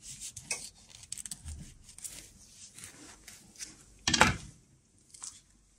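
Kitchen knife cutting into an avocado held in the hand, with faint scraping and handling noises and one brief louder knock about four seconds in.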